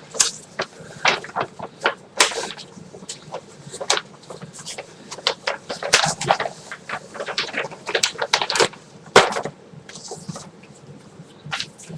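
A large paper poster being handled and folded: irregular rustling and crinkling of paper with sharp crackles.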